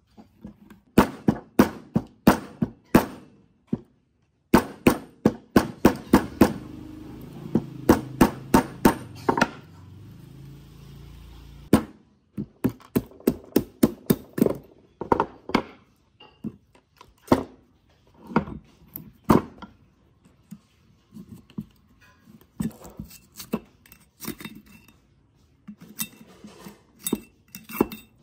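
Repeated sharp knocks and taps in quick runs, like tools and metal parts being struck and handled on a workbench, with a stretch of steady low noise under the taps between about five and twelve seconds in.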